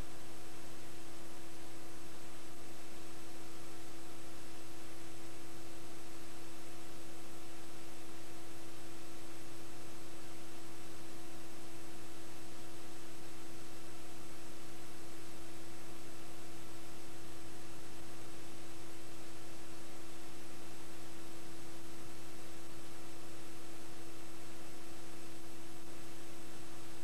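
Steady electrical hum and hiss that does not change, with no other sound: the noise of an empty audio track that carries no sound from the game.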